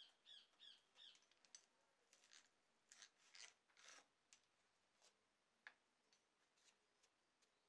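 Faint hand-cranked eggbeater drill boring into a wooden plate: a run of short scraping strokes about two to four seconds in, with a few high chirps near the start and scattered light clicks later.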